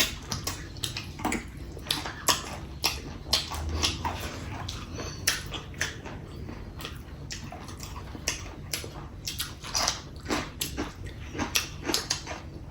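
Close-up eating sounds: chewing and lip-smacking on chicken drumstick curry and rice, a series of short irregular wet smacks and clicks, a few each second.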